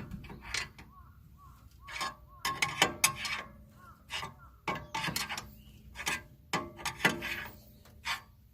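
Hand tools working on metal: irregular ratchet-like clicks and sharp clanks, a stroke every half second to a second.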